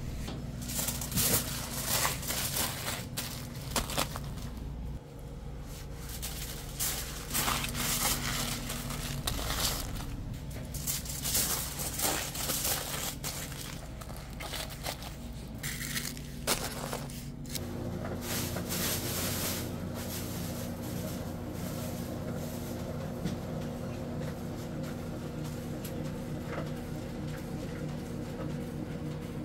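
Aluminium foil crinkling and rustling in repeated short crackles as burgers are wrapped, over a low background hum; after about 17 seconds the crinkling mostly stops and a steadier multi-tone hum takes over.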